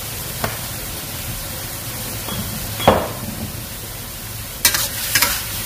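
Squid and celery sizzling in a stainless steel wok, with a sharp knock of the metal spatula on the wok about three seconds in and a few quick spatula scrapes near the end.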